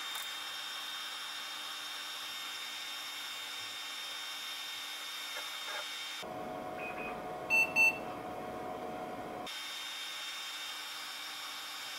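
Compaq Portable II computer running through a reboot: steady fan and drive hum with a high whine, changing character for about three seconds in the middle. Two short beeps from its speaker come about 7.5 seconds in.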